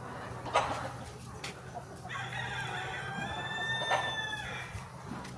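A rooster crows once, a single long call held for about three seconds starting about two seconds in. A couple of short sharp clicks and a steady low hum sit underneath.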